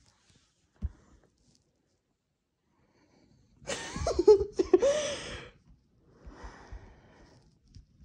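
A loud, breathy vocal sound from a person close to the microphone, a wheezing, gasp-like cry with swooping pitch, lasting about two seconds midway through. A single soft click comes about a second in.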